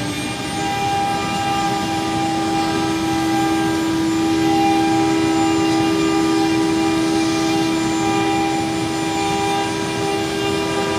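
Spindle motor of a 4-axis rotary CNC engraving machine running a job. It gives a steady whine over a constant noise, and its pitch rises briefly in the first second as it comes up to speed, then holds steady.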